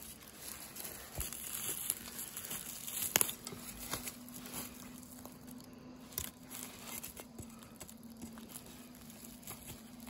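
Rustling and crunching of dry leaves, grass and spiny chestnut burrs as they are prodded and pulled apart with a tool and a gloved hand to free the chestnuts. Scattered sharp clicks and snaps come through, busiest in the first half, with one sharp crack about three seconds in.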